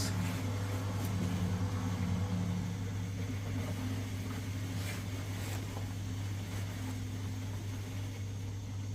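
Steady low mechanical hum with a few faint steady tones, easing off slightly a few seconds in.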